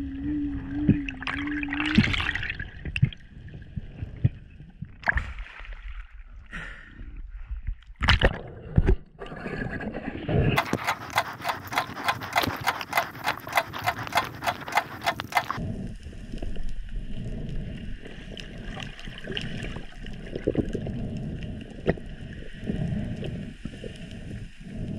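Underwater water noise with gurgling and scattered knocks during a freedive. Near the middle comes a rapid, regular ticking lasting about five seconds.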